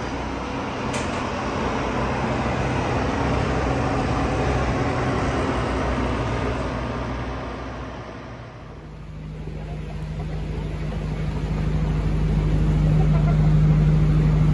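Road traffic noise. After a brief lull, a vehicle engine's steady low drone builds and becomes loud near the end.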